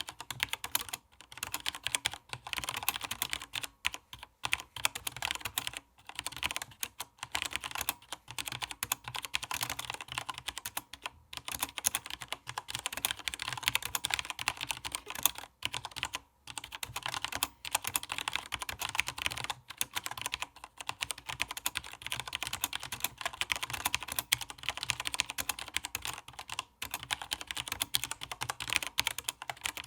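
Continuous typing on a SteelSeries 6Gv2 mechanical keyboard with linear Cherry MX Black switches, ABS keycaps and plate-mounted stabilizers: a rapid, steady clatter of keystrokes with a few short pauses.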